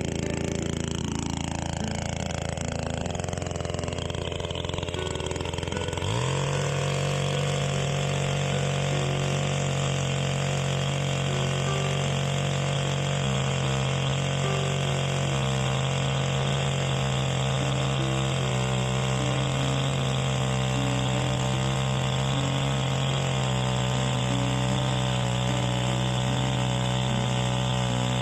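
An engine running, its pitch falling over the first few seconds. About six seconds in it jumps to a steady, even speed and holds there.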